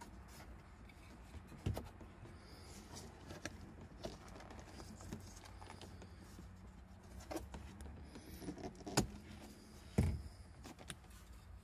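Handling noise: scattered light clicks and rustles as hands pull a speaker wire and its plastic plug connector through the dashboard speaker opening, with a few sharper knocks about two seconds in and again near nine and ten seconds.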